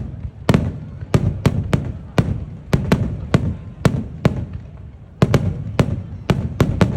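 Fireworks going off in a rapid barrage: a string of sharp bangs, about two a second, each trailing a rumbling echo, with the booms of the shells overlapping.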